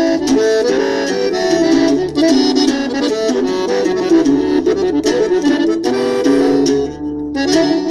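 Instrumental intro of a norteño song: an accordion melody over a bass line and rhythm, with a short break about seven seconds in before the band comes back.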